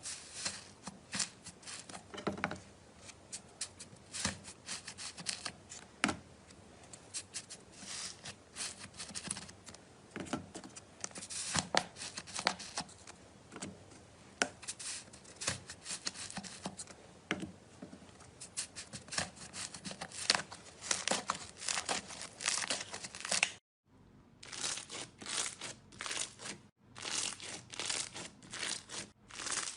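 A knife cutting and scraping into a bar of dry soap: a long series of short, crisp, crackly strokes, broken twice by brief gaps near the end.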